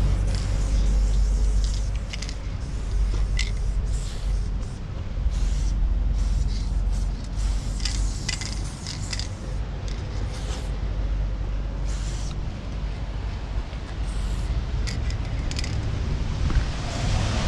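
Aerosol spray paint can hissing in short strokes, roughly one a second, a few held for nearly a second, as graffiti is sprayed onto a truck's side. A steady low rumble lies underneath.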